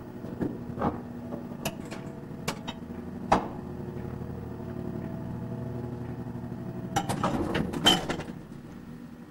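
Lift running: a steady machine hum that swells and then eases off near the end, with scattered clicks and knocks from the cab.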